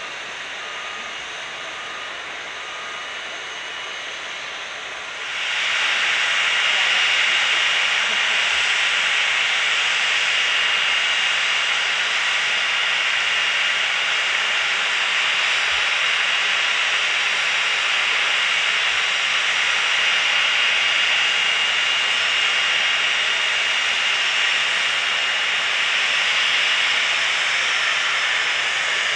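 Twin rear-engined business jet taxiing, its turbofans giving a steady hiss with a high whine held on one note. The sound comes in much louder about five seconds in, over a quieter engine hiss before it.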